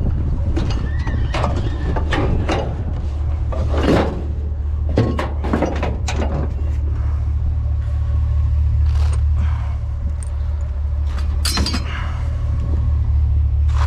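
Truck engine running with a steady low hum, overlaid by irregular clanks, knocks and rattles of metal scrap being handled.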